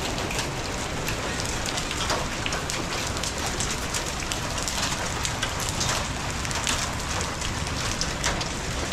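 Rain mixed with pea-sized hail falling on a wet concrete driveway: a steady hiss with many small, sharp ticks of hailstones striking.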